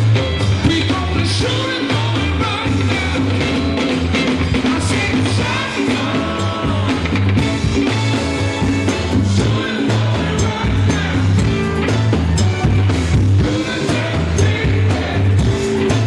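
Live band playing: a man sings into a microphone over a drum kit and electric guitar, with a steady low beat underneath.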